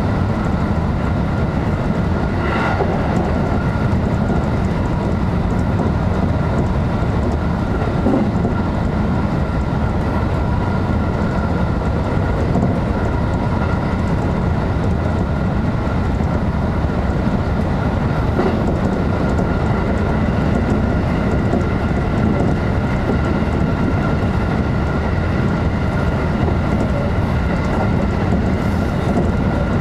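JR electric train running steadily at speed, heard from inside the front of the lead car: an even rumble of wheels on rail with a thin steady whine above it and a few faint clicks from the track.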